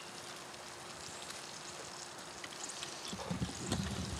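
Faint steady sizzle of duck breasts frying in oil in a pan, with a few low rumbles near the end.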